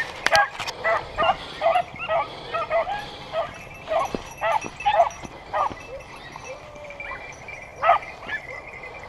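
Hunting dogs yelping in short, high barks, about three a second at first, then more spaced out, with a last loud yelp about eight seconds in: hounds giving tongue as they work a trail through the scrub. A few sharp clicks right at the start.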